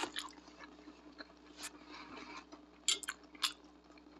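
Close-miked mouth sounds of someone eating: four short, sharp wet clicks and smacks spread over a few seconds, over faint room hiss.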